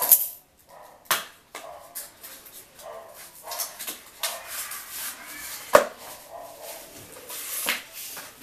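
Small cardboard box being handled and opened by hand: cardboard scraping and squeaking, with several sharp knocks, the loudest about six seconds in.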